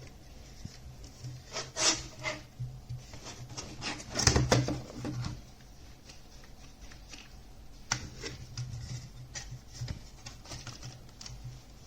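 Handling noises: scattered light clicks and rubbing, loudest about two seconds in and again around four to five seconds, over a faint steady low hum.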